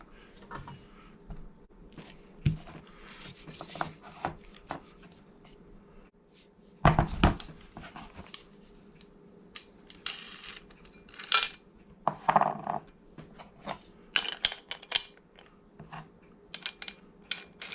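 Makita angle grinder and its metal parts being handled on a bench, not running: scattered metallic clicks, clinks and knocks, with one heavier thump about seven seconds in.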